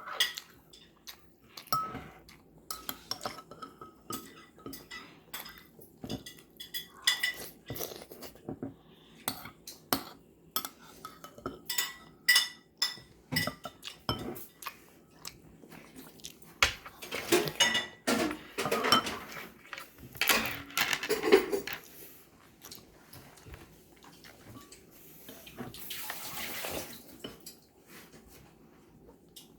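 Cutlery clinking and tapping against a soup bowl: many short, irregular clinks, some ringing briefly, bunched more densely about two-thirds of the way in.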